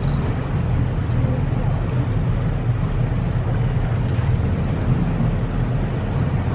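Whale-watching boat's engine running with a steady low hum, under a constant rushing noise of wind and water.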